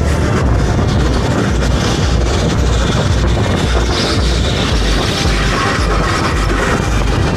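Go-kart driving hard around an indoor track, heard from onboard: steady running noise with no let-up.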